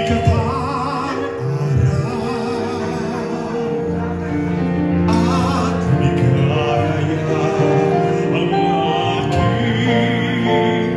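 A man singing a slow ballad into a handheld microphone through a sound system, holding long notes with vibrato, over backing music.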